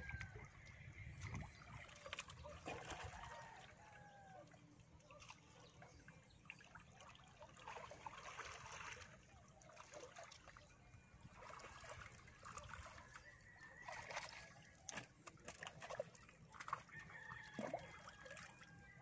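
Faint sloshing and trickling of shallow muddy pond water as hands and a net work through it, with short bird calls now and then in the background.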